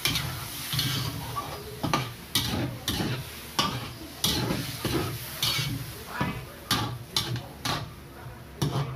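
Metal spatula scraping and clinking against a metal wok while stirring fried chicken, tomatoes and green chillies in freshly added water, with the strokes coming every second or so. The hot pan sizzles softly underneath.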